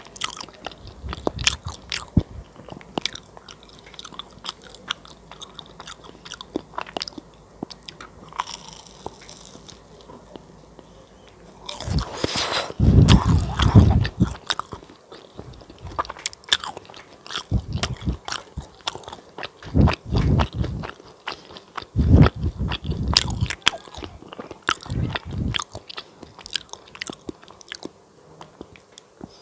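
Close-miked crunchy chewing of fried banana cake, with crisp crackles from the fried batter and heavier bursts of chewing every few seconds.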